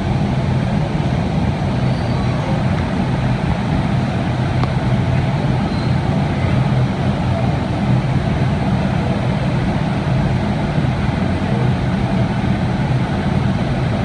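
Steady low roar and hum of a glass factory's hot shop, the furnaces and glory holes running, holding constant throughout.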